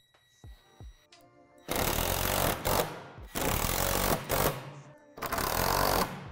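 Ratchet wrench tightening the bolts that hold the plastic barrier panels to the metal brackets: three bursts of rapid ratcheting, the first about two seconds in, over faint background music.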